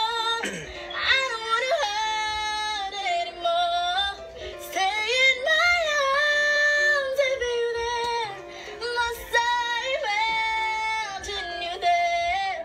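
A voice singing high, long-held notes in several drawn-out phrases, sliding up and down between pitches with a slight waver.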